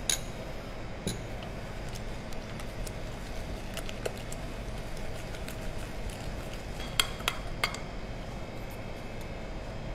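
Metal wire whisk working thick butter-and-egg batter in a glass mixing bowl, clinking sharply against the glass a few times, with three quick clinks close together about seven seconds in. A steady low hum runs underneath.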